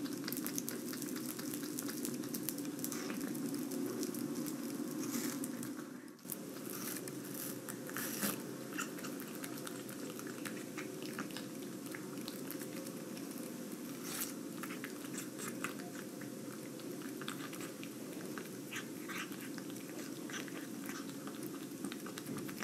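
Persian cat eating watermelon: wet chewing and licking with many small clicks and smacks.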